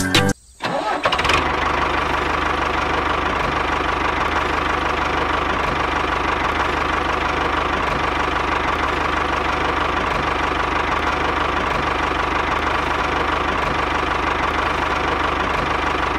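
Tractor engine running steadily at a low, even idle. It comes on about a second in, after a moment's silence.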